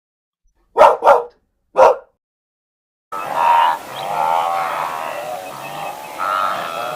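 A dog barking three times, two barks in quick succession and then a third. About three seconds in, a different recording starts, with background hiss and a run of pitched, wavering calls.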